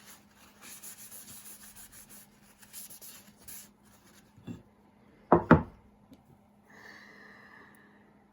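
Costume jewelry being handled and sorted: a rapid clinking rattle of beads and chain for about three seconds, then two sharp clacks close together as pieces knock on a hard surface, the loudest sound. A short scraping rustle follows near the end.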